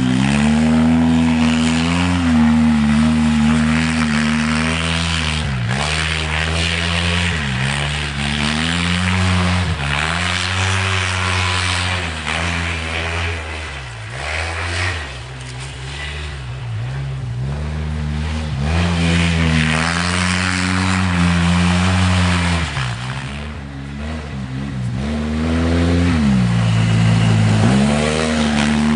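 Polaris RZR 800 side-by-side's twin-cylinder four-stroke engine revving hard under way through snow, its pitch dropping and climbing again several times as the throttle is lifted and reapplied, with a steady hiss above the engine.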